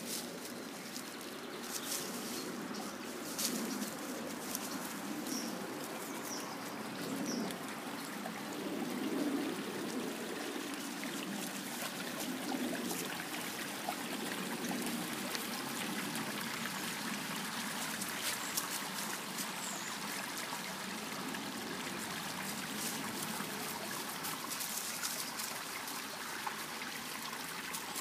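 Shallow stream trickling steadily, with uneven splashing from dogs wading through the water.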